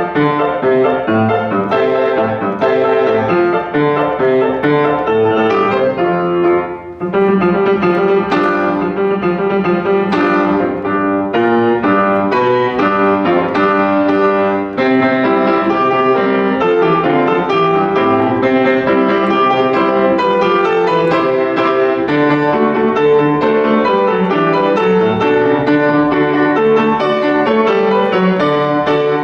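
Piano playing a piece of many quick notes, with a brief break about seven seconds in.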